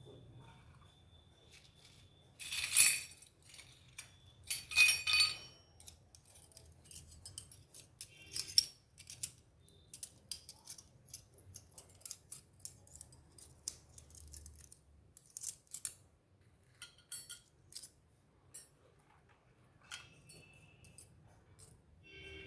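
Miniature kitchen set pieces and their packaging being handled: a long run of small clicks, taps and clinks, with two louder rustling bursts about three and five seconds in.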